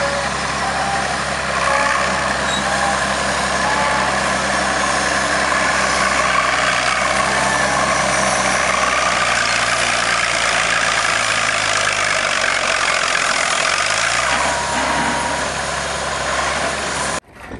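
An Erie steam shovel at work, its steam hissing over the steady low idle of a crawler tractor's engine beside it. The engine speeds up briefly about three-quarters of the way through.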